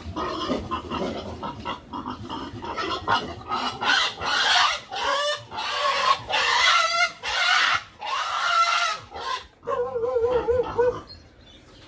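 Pig squealing loudly as it is caught and put into a wooden crate: a run of long, harsh squeals from about four seconds in, ending in a warbling cry near the end.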